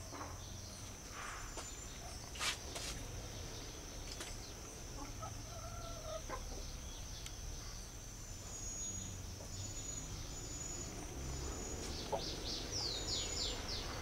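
Garden ambience: a steady high-pitched insect drone, a short low call about five seconds in, and a quick run of falling whistled bird notes near the end.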